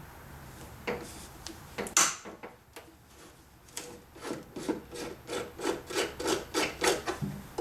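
Flat-blade screwdriver working a headlamp mounting screw loose: a few sharp clicks, the loudest about two seconds in, then an even run of short grating strokes, about three or four a second, as the screw is turned out.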